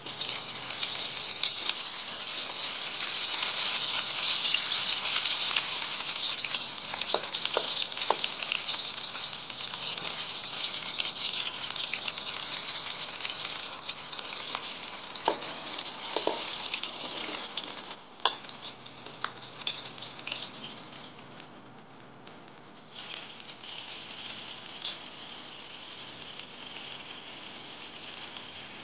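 Diced pork fat frying in its own rendered lard in a wok: a dense, steady sizzle with scattered sharp crackles and a few knocks of a spatula. The sizzle eases somewhat in the second half.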